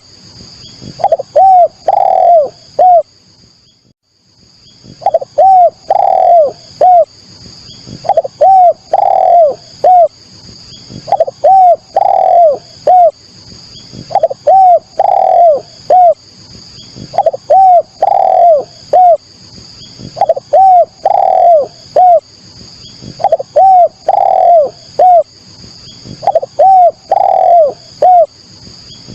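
Spotted dove (derkuku/tekukur) cooing: phrases of several rising-and-falling coos, repeated about every three seconds, with a longer pause shortly after the start.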